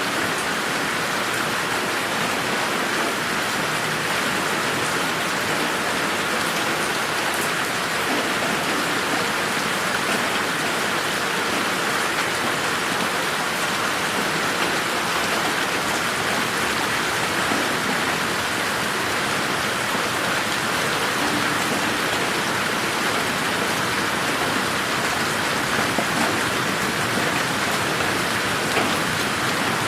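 Steady rain falling and pattering on surfaces, an even hiss of drops without a break.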